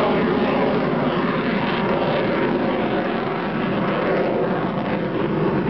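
Jet noise of a Lockheed U-2's single turbofan engine as the aircraft flies by, a steady rushing sound with faint engine tones running through it.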